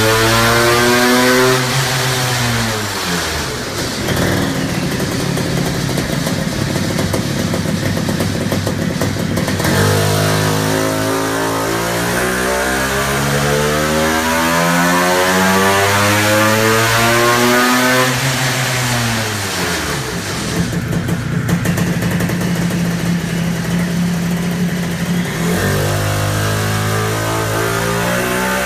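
Honda CR500's single-cylinder two-stroke engine running under load on an engine dyno, breathing through an aftermarket exhaust manifold and expansion chamber. Its revs climb slowly over several seconds, then drop off, twice, with rougher, steadier running between, and a new climb starts near the end.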